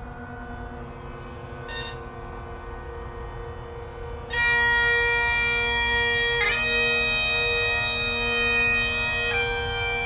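Bagpipes playing. At first only the steady drones sound, then about four seconds in the chanter comes in loudly over them, holding long notes of a slow tune and changing note twice.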